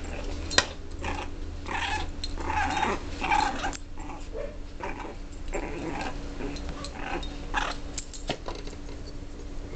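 A six-week-old puppy and a small dog play-fighting, with short bursts of play growling. The growls are thickest between about one and four seconds in, then come scattered.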